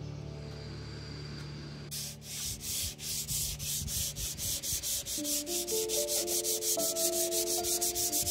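Hand-sanding a bare wooden chair seat with a sheet of fine P400 sandpaper pressed flat under the palm: quick, even back-and-forth rubbing strokes, starting about two seconds in. Soft background music plays under it, a held note at first and a slow melody later.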